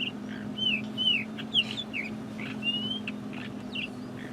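Ant-eating chat calling: a run of short whistled notes, some sliding down and some rising, about two a second, over a steady low hum.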